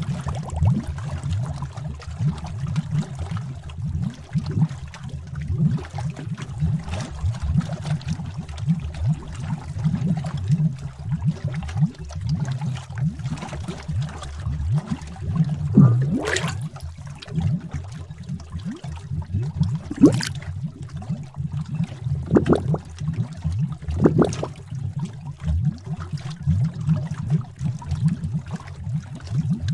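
Bubbling cauldron sound effect: a thick liquid bubbling and gurgling in a steady stream of low pops. A few larger bubbles burst more loudly, each with a short rising pitch, in the second half.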